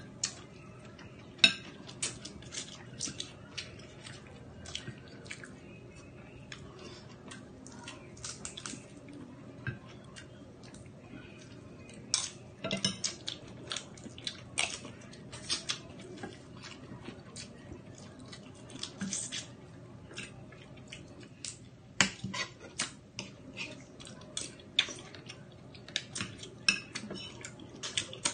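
Eating sounds of shellfish being peeled and eaten by hand at the table: irregular clicks and clinks of cutlery against dishes and of shells being handled. One sharp click comes about a second and a half in, and there are busier clusters around the middle and near the end.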